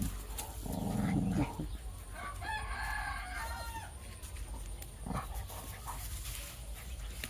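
Teething puppy growling in a low rumble about a second in, then a shorter, higher-pitched animal call with several tones around the middle and a sharp click near five seconds.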